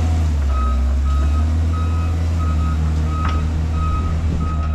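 Heavy diesel machine reversing: its backup alarm beeps steadily, a little faster than once a second, over the low drone of the engine, with one sharp clack about three seconds in.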